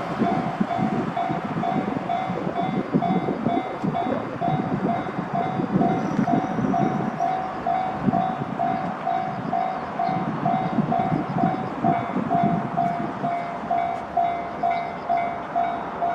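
Railway level-crossing warning bell sounding, an electronic ding repeated evenly, over the rumble of a train passing the crossing.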